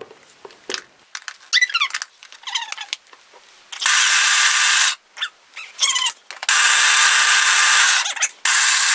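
Small electric food processor pulsed three times, its blade grinding quick oats into a fine powder: a burst of about a second, a longer burst of nearly two seconds, then a short one at the end.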